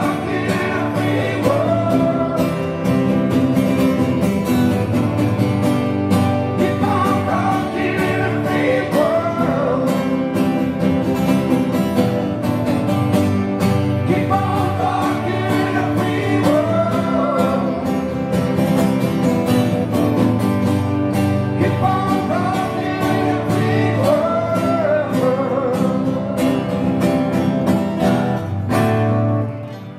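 Live group of strummed guitars with several men singing together into microphones. The music drops away just before the end.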